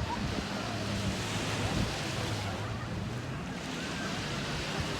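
Sea waves washing onto a beach, an even rushing wash, with wind buffeting the microphone.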